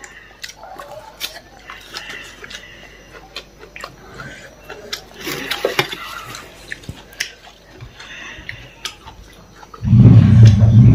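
Close-up eating sounds: chewing, wet mouth clicks and smacks, scattered and irregular. About a second before the end, a loud, steady low hum comes in suddenly.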